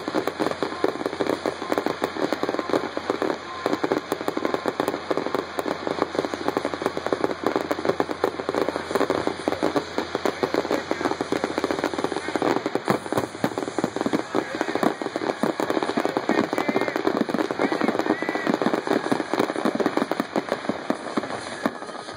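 Fireworks display: a dense, continuous barrage of bangs and crackling from bursting shells, comets and ground fountains, with rapid reports piling on one another.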